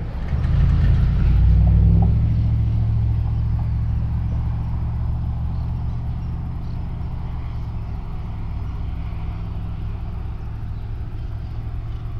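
Low engine rumble of a motor vehicle, swelling about half a second in and then settling to a steady drone.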